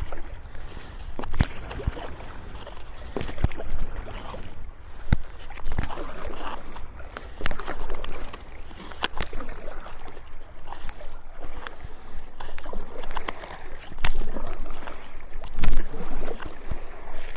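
Stand-up paddleboard paddle strokes on calm water: the blade dipping and pulling through, splashing and gurgling in a loose rhythm every second or two, with water lapping at the board and occasional sharp clicks.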